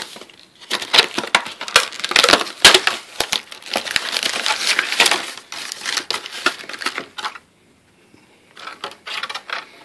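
Packaging of a shaver box rustling and crinkling in irregular clicks while the contents are pulled out. It goes quiet for about a second near the end, then rustles briefly again.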